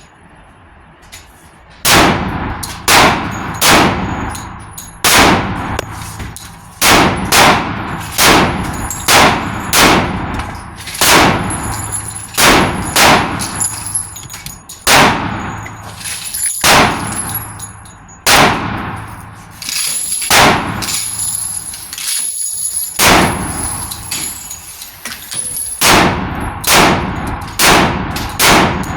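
10mm handgun firing a long string of loud shots, about one to two a second, starting about two seconds in, each with a ringing tail.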